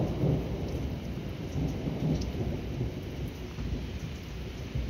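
Thunder rumbling over steady rain. The rumble is loudest in the first couple of seconds, then eases off.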